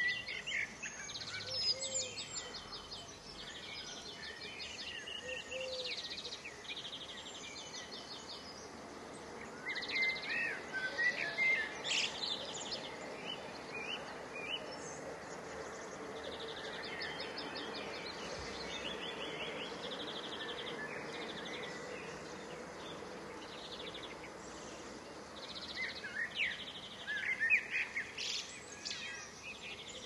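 Small songbirds singing in the background: short trilled phrases repeated again and again, with busier bursts of chirping twice, over a steady outdoor background noise.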